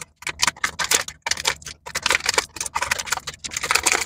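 Plastic packaging and small plastic parts handled in the hands: quick, irregular crinkling and clicking.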